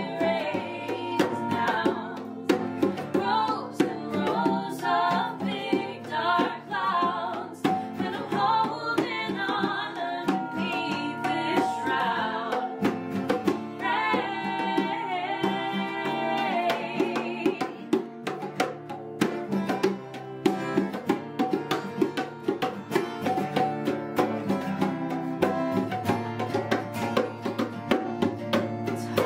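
Acoustic band playing live: a woman singing over two strummed acoustic guitars, with hand-played bongos keeping a steady rhythm.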